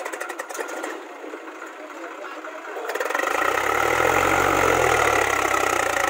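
Swaraj 735 FE tractor's diesel engine running, then revving up from about three seconds in and working hard under load as it strains to drag a loaded trolley out of soft, dug-up soil.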